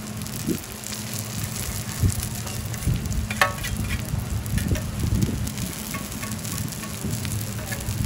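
Seafood green onion pancake frying in oil on a griddle, sizzling steadily, with scattered small clicks and a brief clink about three and a half seconds in.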